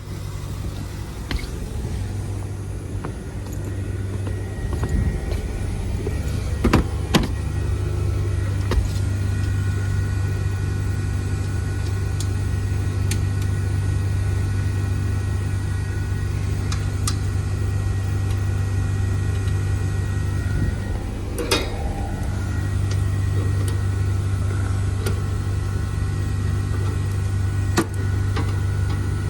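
Carrier 25VNA Infinity heat pump outdoor unit running: a steady low hum from the inverter compressor and condenser fan, with faint steady whines above it. It grows a little louder over the first several seconds, then holds steady. A few sharp clicks or knocks come through, the loudest about two-thirds of the way in.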